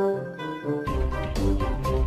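Background music: a short melody of stepped notes, joined about a second in by a steady beat with bass.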